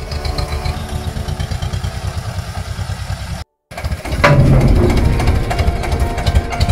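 Old farm tractor engine running with a steady, rapid low throb. About halfway there is a cut, after which the engine runs louder while its front-loader arm pushes against a corrugated steel shipping-container wall, with a sharp knock just after the cut.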